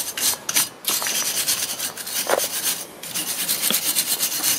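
Rapid back-and-forth scraping of a metal hand tool on a car's front wheel hub, cleaning rust off it before the wheel goes on, with a short pause about three seconds in.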